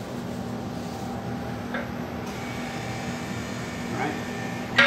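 A steady machine hum, even and unchanging, with a higher tone joining it about two seconds in and a few faint, brief voices.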